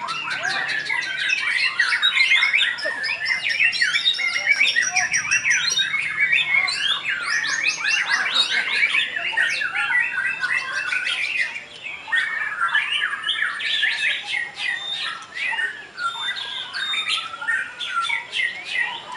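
Several caged white-rumped shamas (murai batu) singing against each other in a contest: a dense, overlapping run of rapid whistles, trills and harsh notes with no break.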